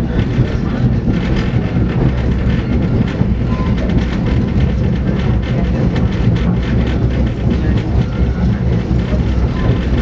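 Passenger train in motion: a steady, loud low rumble of the running train on the rails.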